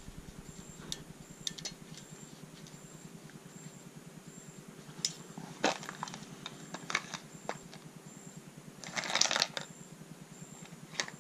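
Light scattered clicks and clinks of hand tools and small bolts being handled on an aluminium engine block, with a brief louder rattle about nine seconds in.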